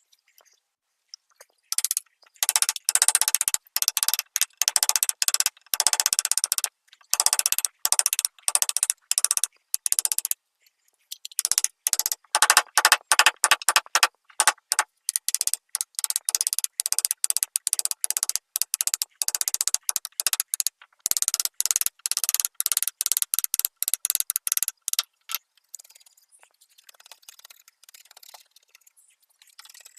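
Rapid, repeated scratchy strokes of a hand tool or abrasive working a wooden table surface, coming in quick runs. There is a short break partway through, and the strokes stop well before the end.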